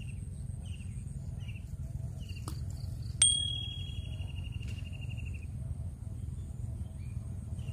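A small fishing bell on a rod tip gives one sharp, bright ring about three seconds in, fading over about a second, as the rods in the rack are handled. Behind it insects trill in a steady pulsing buzz over a low outdoor rumble.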